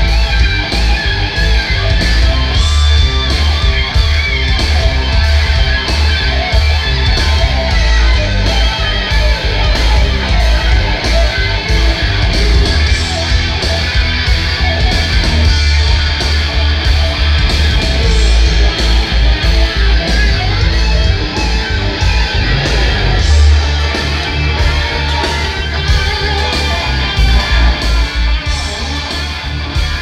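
Guitar-led rock music with heavy bass, played loudly through a PA system of two tall full-range speaker cabinets stacked on two subwoofer cabinets, as a listening test of the freshly calibrated sound system.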